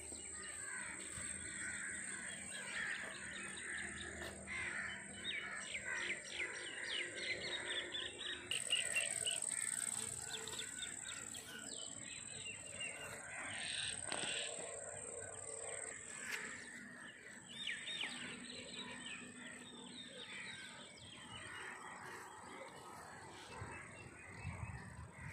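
Several birds calling and chirping in repeated short phrases over a steady high-pitched tone.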